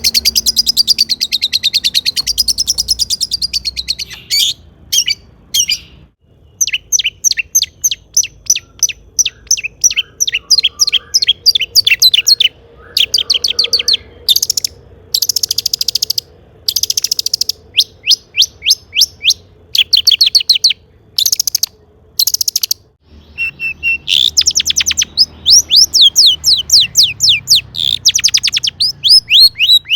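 Long-tailed shrike (cendet) singing in full voice: rapid runs of high, down-slurred notes, several a second, in phrases broken by short pauses.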